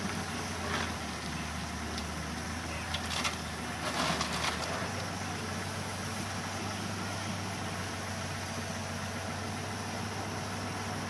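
Diesel engines of a Halla 130 wheel excavator at work and a loaded tractor standing beside it, running steadily at low revs. A few brief, louder noises come about three to four and a half seconds in.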